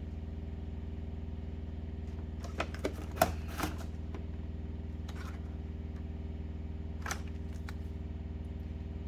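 A few light clicks and knocks of tools or a plastic scanner case being handled, about a second apart near the middle, over a steady low electrical hum.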